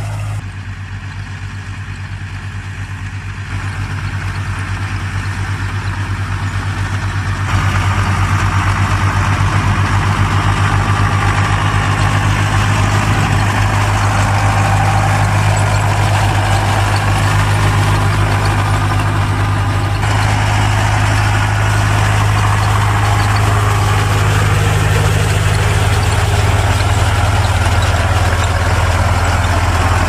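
Deutz-Fahr DX-series tractor's air-cooled diesel engine running steadily while pulling a rotary hay rake, with a deep, even pulse. It gets louder in steps about 3.5 and 7.5 seconds in, and its tone shifts again about 20 seconds in.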